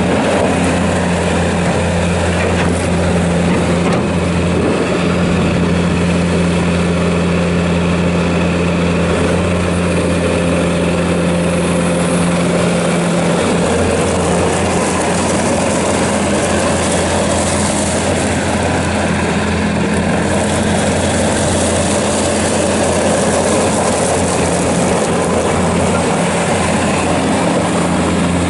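Bobcat S590 skid steer loader's diesel engine running steadily, its note shifting slightly about halfway through.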